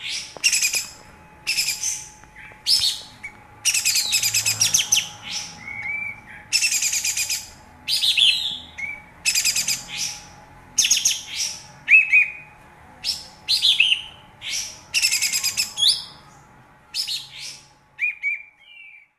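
Kapas tembak (olive-winged bulbul) singing in short, fast chattering bursts, roughly one a second, with a few lower slurred whistles between them.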